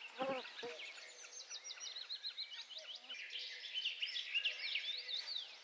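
Morning chorus of several songbirds singing at once, with quick repeated notes and rising and falling whistles overlapping. Two short, lower-pitched calls from another animal come within the first second.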